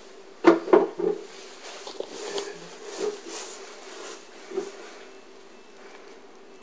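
Knocks and bumps on a shelf as a cat moves about in its pen and is handled: three sharp knocks in the first second, then softer taps and rustling for a few seconds.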